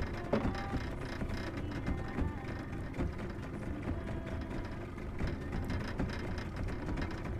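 Spinning fishing reel being cranked steadily, its gears and line roller turning as the line is wound in from a squid jig, over a low steady rumble.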